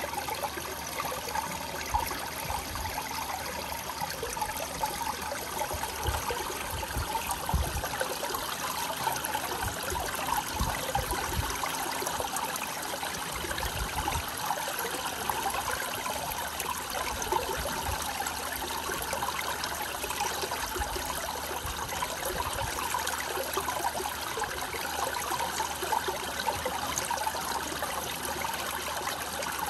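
Water from a stone fountain block running down its face and splashing onto a metal drain grate and wet pebbles: a steady trickle and splash.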